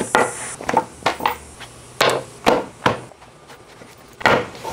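A leather knife roll unrolled on a wooden butcher-block table and things set down on the wood: about seven separate knocks and thuds.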